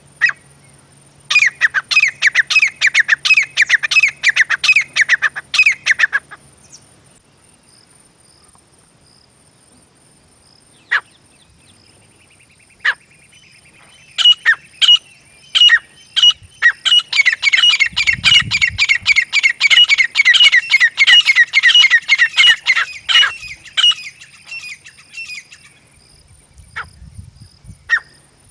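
Grey francolin calling: loud, rapid series of sharp repeated notes in two long bouts, the first near the start and the second, longer one from about halfway, with scattered single notes in between. A faint steady high-pitched insect-like whine runs underneath.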